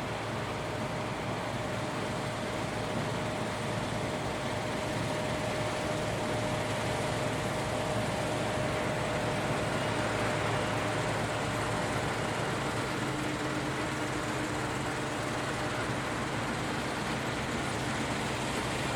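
Combine harvester running steadily: a continuous machine drone with a faint steady whine over it, and a second, lower whine coming in about two-thirds of the way through.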